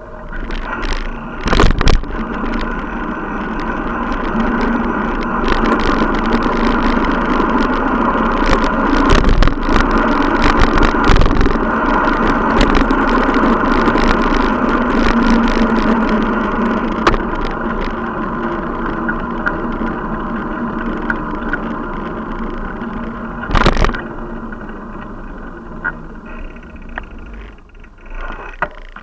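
Riding noise of a bicycle picked up by a bike-mounted action camera: a steady rumble and rattle from the tyres, the road and the mount, broken by a few sharp knocks over bumps. It dies down near the end as the bike comes to a stop.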